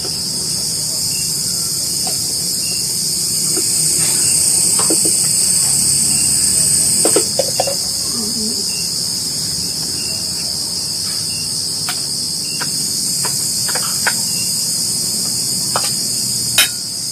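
A steady, high-pitched chorus of insects shrilling without pause, with scattered light clicks and taps, a few of them louder about seven seconds in and near the end.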